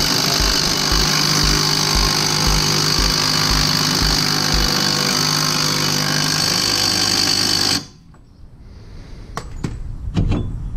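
A machine runs steadily and loudly, with a low thump about twice a second for the first few seconds, then cuts off abruptly near the end. A few light metallic clicks follow as the brake rotor is handled.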